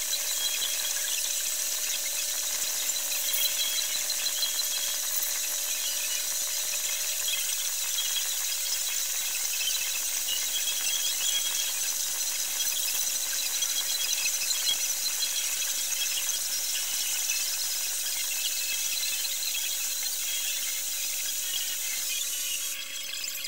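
A small power tool running steadily, with a rubbing, grinding noise over a high hiss and a low motor hum that shifts slightly in pitch about six to ten seconds in.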